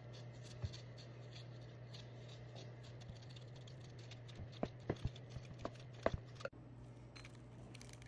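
Faint handling sounds of food and kitchen utensils: a few light taps and clicks, bunched in the second half, over a steady low hum.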